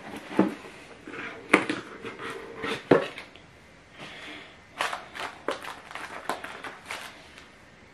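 Cardboard gift box being opened and its contents handled: irregular rustling, scraping and sharp taps of cardboard and paper, loudest about one and a half and three seconds in, with another run of taps and rustles later on.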